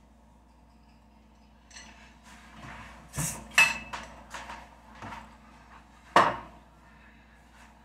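Ceramic dishes clinking and knocking as a white ceramic bowl is fetched, with two sharp clinks about three seconds in, then the bowl set down on a wooden counter with one hard knock about six seconds in.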